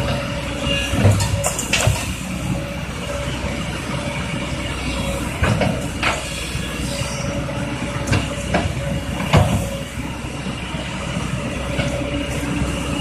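Kobelco tracked excavator running under load: a steady engine rumble with a thin steady whine, broken by several sharp metallic clanks.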